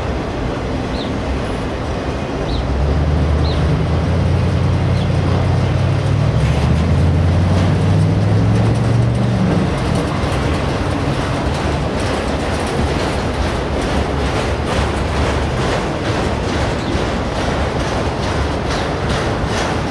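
Autorack freight cars of a long train rolling past close by: a steady rumble of wheels on rail, with a low hum in the first half and rhythmic clickety-clack of the wheels that grows clearer in the second half.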